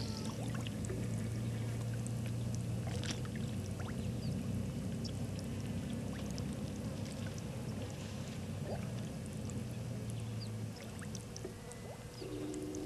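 Outdoor bush ambience: scattered small chirps and ticks from birds and insects over a steady low hum, which stops about eleven seconds in.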